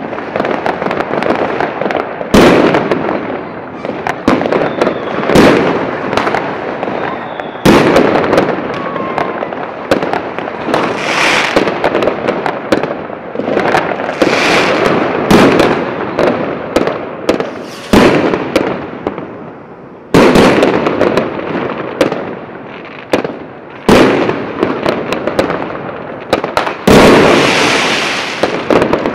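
Aerial fireworks going off one after another: loud bangs every two to three seconds, each trailing off in an echoing rumble, with continuous noise of further fireworks between them.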